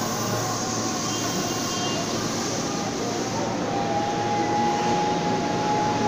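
Ex-JR Nambu Line 205 series electric commuter train pulling out, its cars rolling past with a steady running noise. A steady whine comes in about halfway through, and the sound grows a little louder near the end.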